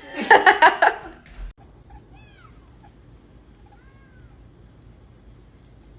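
A domestic cat yowling loudly in a quick stuttering run of about five pulses during the first second. Two faint, short rise-and-fall calls follow, about two and four seconds in.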